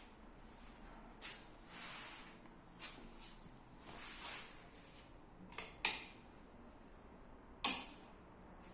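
Scattered light clicks and knocks with a few short rustling swishes in a quiet small room; the sharpest knock comes about three-quarters of the way through.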